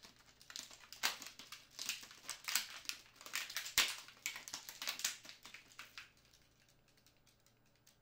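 A camera strap with a Falcam magnetic quick-release buckle clicking and rustling as the camera hanging from it is shaken and jerked to test the buckle's hold. It is a quick run of ticks and rustles that stops about six seconds in.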